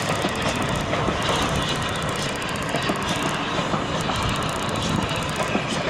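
The Flying Scotsman, an LNER A3 Pacific steam locomotive, hauls a passenger train past with a steady, continuous train noise and frequent small clicks from the wheels and track.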